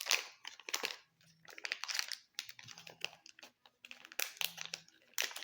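Irregular crinkling, crackling and clicking from a slime kit and its plastic packaging being handled, in short bursts one after another.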